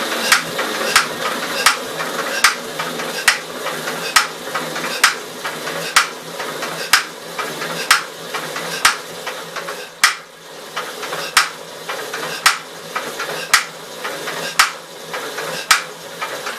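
1952 Gravely L single-cylinder engine being turned over by a power tool: a steady whirring with a sharp metallic knock roughly once a second, turning but not firing. It stops abruptly near the end.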